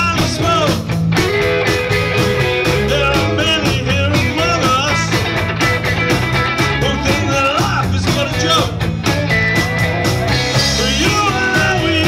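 Live rock band playing, with electric and acoustic guitars, bass and drums, and singing over them.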